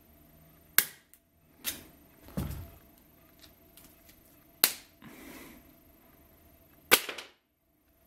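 Sharp plastic snaps and clicks from a nylon double zip-tie cuff being worked with pliers and handled: three loud ones about a second in, near the middle and near the end, a few softer ones between, and a dull knock about two and a half seconds in.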